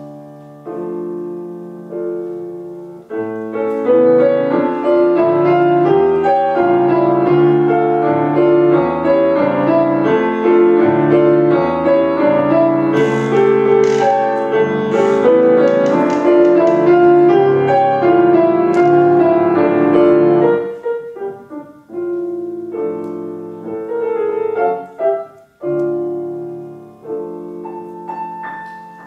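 Grand piano played solo: a few spaced chords, then a loud, dense run of notes from about three seconds in, thinning back to quieter, spaced chords after about twenty seconds.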